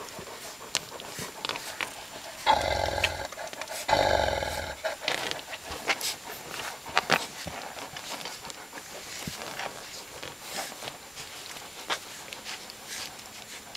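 Three-week-old otterhound puppies nursing: a scatter of small sharp smacking clicks of suckling, with two short, louder dog vocalizations in quick succession a few seconds in.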